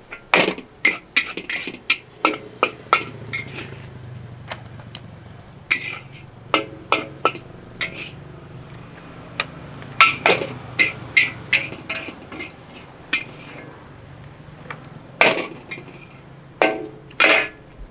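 Metal spatula clanging and scraping against a wok in irregular, ringing strikes as mee goreng is stir-fried, over a faint steady low hum. The loudest clanks come about halfway through and near the end.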